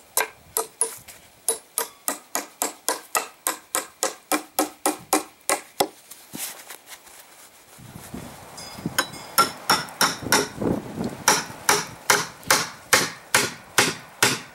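Ball-peen hammer striking a flat steel bar held against a wooden block, quick even blows of about three a second, each with a short metallic ring. The blows stop about six seconds in, then a second run of hammering starts about two seconds later and runs on.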